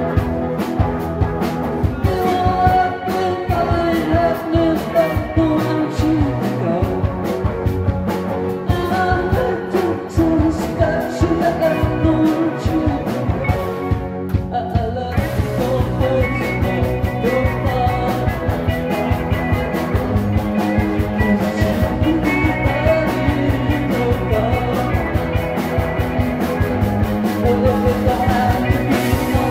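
Live rock band playing: electric guitar, drums and bass under a lead vocal sung into the microphone, with a steady drum beat. The band's sound gets fuller about halfway through.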